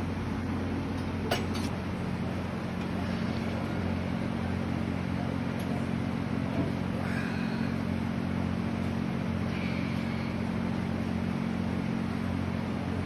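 A steady low mechanical hum, with one faint click about a second in.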